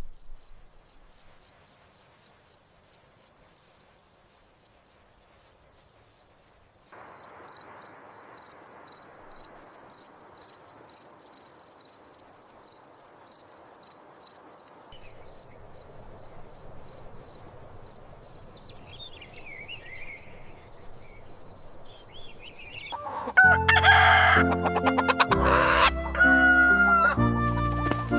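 A high, steady pulsing chirr, like crickets, runs quietly under faint outdoor noise. About 23 seconds in, a rooster crows loudly and flute music comes in.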